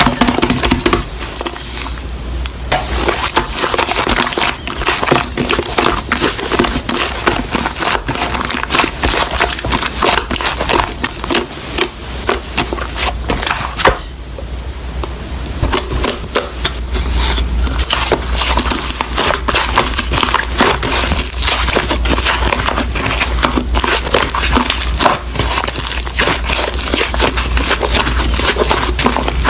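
Slime being squished and kneaded, giving a steady run of crunchy crackles, pops and clicks that eases briefly about halfway through.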